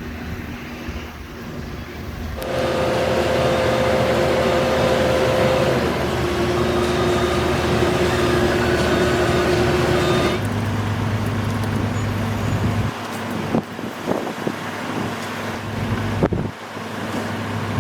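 Crane engine and hoist running under load as a steel tower segment is lifted. It grows louder about two seconds in, with a steady whine that drops to a lower pitch partway through, then settles to a lower steady hum, with a few sharp knocks near the end.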